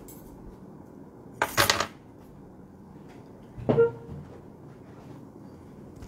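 Two brief handling noises over a steady low room hum: a rattling clatter about a second and a half in, then a sharp knock with a short ring about two seconds later.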